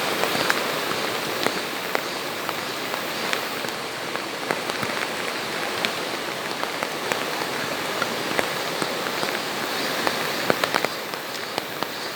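Rain falling steadily, an even hiss with many scattered sharp taps of single drops striking close by.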